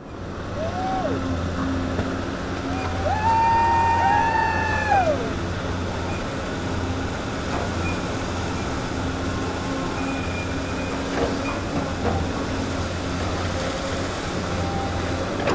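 Excavator's diesel engine running steadily, with the hydraulic whine rising, holding and falling as the boom and bucket move, briefly near the start and again for about two seconds a few seconds in.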